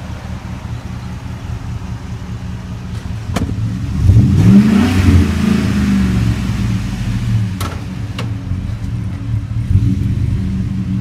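Ford F-150 SVT Raptor's 6.2-litre V8 idling, then revving up with a rising pitch about four seconds in and running on more loudly. A few short sharp knocks come just before the rev and around eight seconds in.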